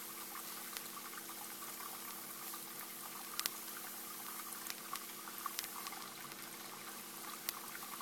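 A potassium permanganate and cough syrup mixture in a wad of tissue fizzing and sizzling as it heats up just before it bursts into flame. A steady faint hiss with scattered small crackles and ticks.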